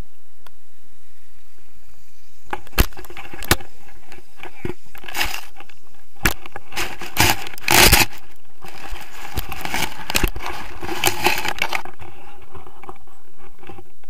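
Handling noise of an action camera on a pole: irregular scraping, rustling and knocks as it rubs through grass and is moved about, starting about two and a half seconds in, with the loudest rustle about eight seconds in.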